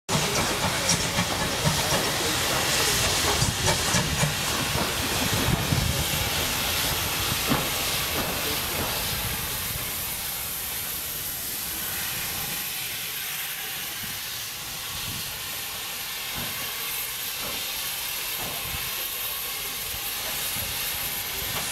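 Steam tank locomotive hissing steadily as steam escapes. A train's low rumble and clatter runs under it for the first several seconds, then dies away, leaving mostly the hiss.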